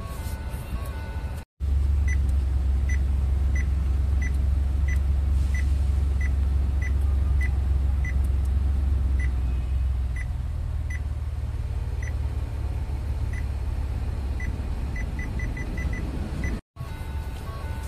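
Touchscreen head unit beeping short high confirmation tones as its climate-control buttons are tapped: at first about every half-second, then more irregularly, ending in a quick run of five or six. Under them runs a steady low cabin rumble that drops in level about halfway through.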